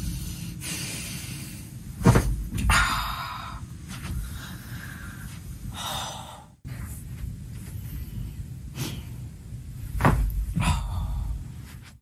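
Spine cracking during standing back-lift chiropractic adjustments: a sharp crack about two seconds in, followed by a breathy gasp. After a cut, a second lift gives more cracks around nine and ten seconds in, again followed by a breathy exhale.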